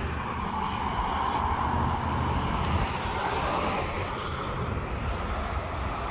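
Traffic noise: a vehicle going past on the road, its noise swelling over the first couple of seconds and fading away in the second half.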